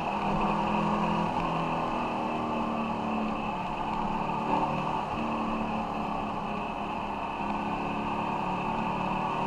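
Ducati Monster 696's air-cooled L-twin engine running steadily under way, its pitch shifting a little with the throttle, with wind and road noise on the bike-mounted camera.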